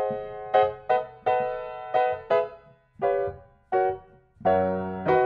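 Background music: a piano-like keyboard playing a slow tune of single struck notes, each ringing and fading before the next.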